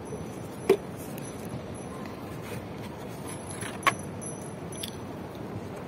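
Steady hum of city traffic, with two sharp clicks about a second in and near the four-second mark as a cardboard takeaway food box is handled.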